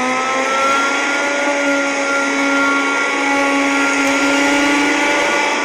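Vacuum cleaner running at full speed: a loud, steady motor whine with several pitched tones over the hiss of rushing air. Its pitch finishes climbing from start-up and levels off within about the first second.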